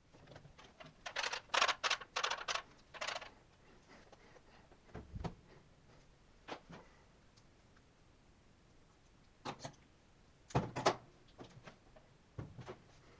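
Irregular clicks and knocks from a laptop being handled: a rapid clatter of clicks in the first few seconds, a dull thump around five seconds in, then scattered sharper clicks.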